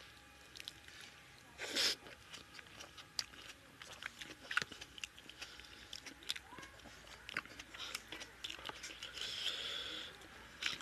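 Close-up eating sounds: chewing with many short mouth clicks and smacks, and fingers mixing rice into chicken curry on a plate. A brief louder burst of noise about two seconds in.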